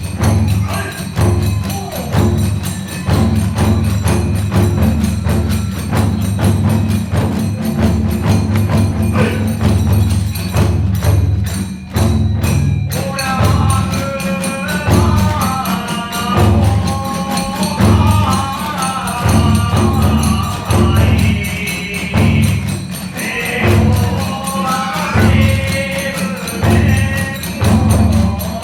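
Kagura hayashi accompaniment: an ōdaiko big drum beats steadily under clashing tebyōshi hand cymbals and small drums. About halfway through, a wavering high melody on fue bamboo flutes comes in over the rhythm.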